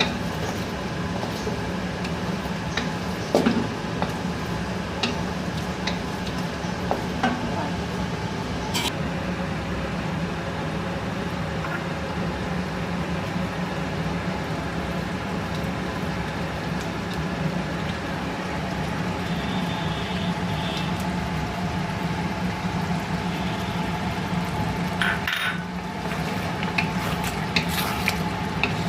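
Chicken gravy sizzling in a pan while it is stirred, with a steady frying hiss and a spoon clicking against the pan now and then, more often near the end.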